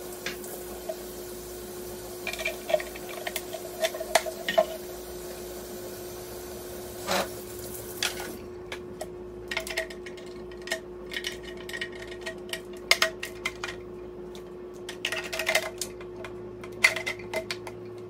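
Plastic humidifier parts knocking and clattering in a kitchen sink as they are washed and handled, with water running for about the first half.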